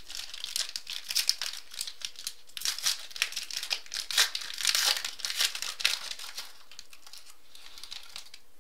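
A trading card pack's wrapper being torn open and crinkled by hand: a run of crackling rustles that dies down near the end.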